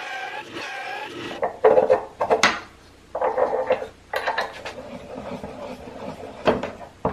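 A small bandsaw running and cutting a piece of wood, its pitch dipping under load, for about the first second. Then a string of wooden knocks and clunks, with a short scrape about three seconds in, as the tension crank of a wooden bandsaw's upper wheel mount is turned by hand.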